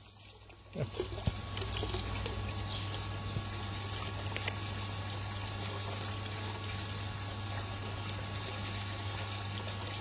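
Water pouring steadily from the outlet pipe of a homemade solar pool heater and splashing into the pool, steady after the first second.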